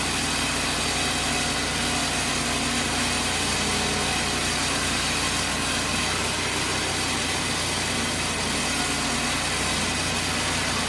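Board edger's engine running steadily at a constant speed, with no change in load.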